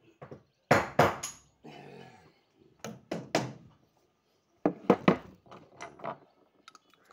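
Hammer striking metal while reloading a spent 12-bore shotgun shell: sharp knocks in clusters, two about a second in, two near three seconds, and a quick run of three around five seconds, with a few lighter taps after.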